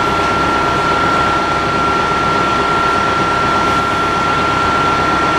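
A diesel transit bus's Detroit Diesel Series 50 engine idling steadily, with a constant high-pitched tone over it.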